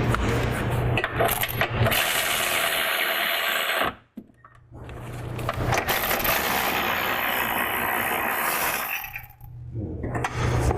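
Power tool running on the nuts that hold the Jeep Wrangler JK's factory bumper studs to the frame, with metal clinks. It stops briefly about four seconds in and again near the end.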